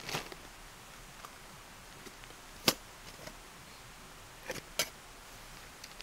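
A few scattered sharp clicks over a faint steady background: one just after the start, the loudest about two and a half seconds in, and two close together later.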